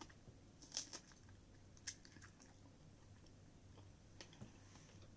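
Faint chewing of fresh strawberries, with a few soft wet mouth clicks about one and two seconds in.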